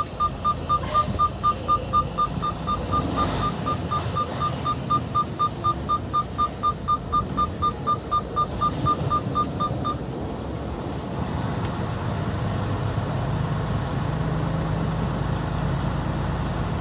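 Rapid electronic warning beeps from a truck cab's dashboard chime, about four a second, that stop about ten seconds in; then a steady low hum.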